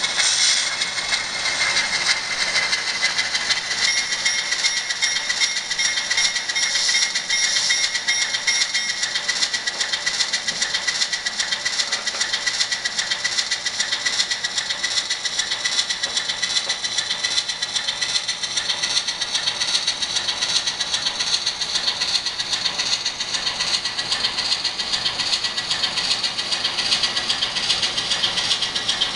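The factory sound decoder of an N-scale Atlas ALCO S-2 model locomotive playing its diesel engine sound through the model's tiny speaker: a thin, tinny, steady engine chug with almost no bass as the locomotive pulls its train.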